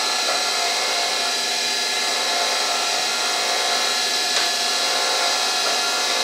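CNC milling machine running steadily, its spindle giving a constant high whine over the noise of the cutter working a sandal die, with a small click about four seconds in.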